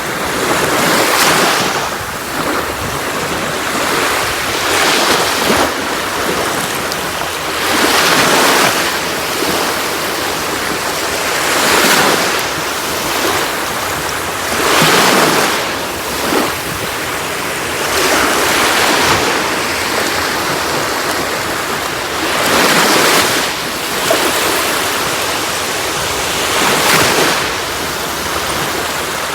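Sea waves breaking and washing on a shore, one after another, a surge of surf about every three to four seconds with a steady wash of water between them.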